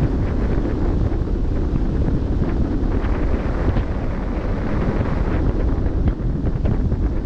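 Steady wind buffeting the microphone, with the rush of sea water past a moving ship's bow underneath.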